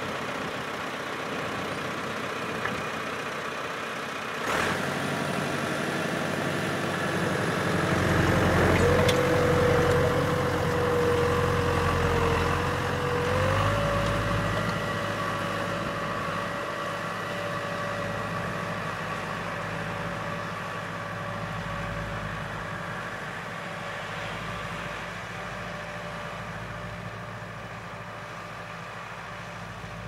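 Massey Ferguson 3075 tractor's turbocharged Perkins engine pulling a three-furrow plough through light soil, running steadily under load. It grows louder about 8 to 13 seconds in, then eases off slowly, and a steady whine steps up in pitch about 13 seconds in.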